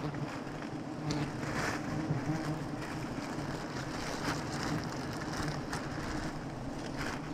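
A swarm of giant honeybees buzzing in a steady low drone around their opened nest, with the crinkle of a plastic bag being worked over the honeycomb now and then.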